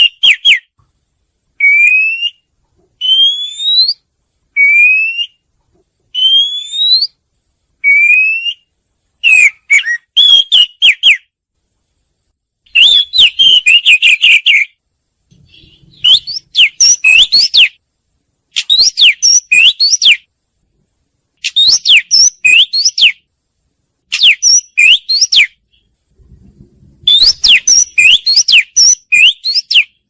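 Oriental magpie-robin singing: first a string of single rising whistles, about one every one and a half seconds, then from about nine seconds in, quick runs of varied whistled notes in bursts of one to two seconds with short pauses between.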